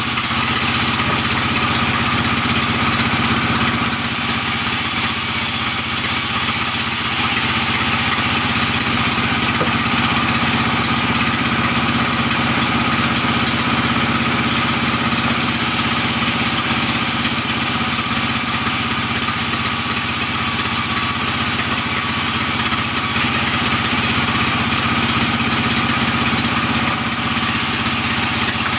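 Sawmill saw running steadily as albasia logs are fed through it lengthwise, a constant loud mechanical drone with the noise of the blade cutting the soft wood.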